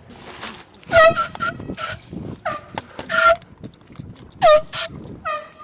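Handheld canned air horns blasting in a rapid series of about six short honks, each with a sharp start.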